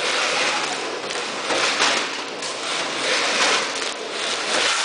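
Automatic vertical packing machine running, a steady noisy hiss with repeated surges, as filled plastic bags of dates slide off its chute and rustle onto the pile.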